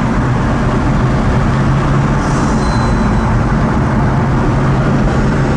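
Pagani Huayra's twin-turbo V12 running at a steady, unchanging pitch while cruising, heard from inside the cabin together with road noise.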